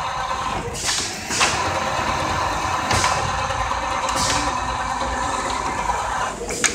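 Automatic template sewing machine running: a steady motor whine with several sharp clacks, the first about a second in and others around three and four seconds.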